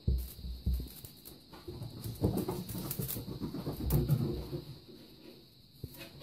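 Russian Blue kittens scuffling and pouncing on a nubby mat while batting a feather toy: irregular soft thumps and rustles of paws and toy, busiest from about two to four seconds in.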